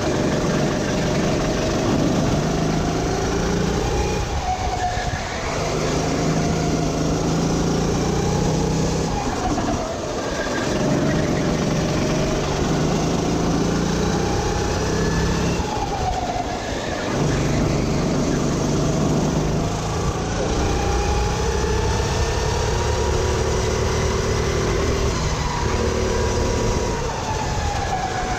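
Sodi RT8 rental kart's four-stroke engine heard from the driver's seat at racing speed, rising in pitch on the straights and dropping away each time the throttle is lifted for a corner, about four times.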